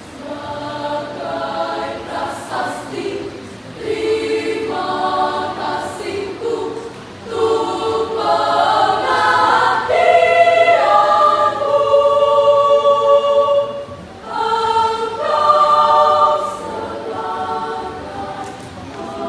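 A choir of young voices singing in parts, apparently unaccompanied, in phrases that swell to their loudest in the middle and ease off near the end.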